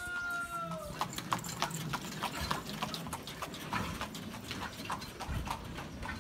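Horse hooves clip-clopping on the street, a quick, uneven run of clops, from a horse pulling a cart. In the first second, a long held call that falls slightly in pitch comes before the clopping starts.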